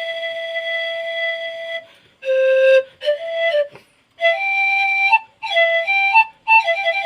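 Wot, the Isan circular bamboo panpipe, played solo: a long held note for about two seconds, then short phrases of separate notes with brief breaks between them, settling back onto a held note near the end.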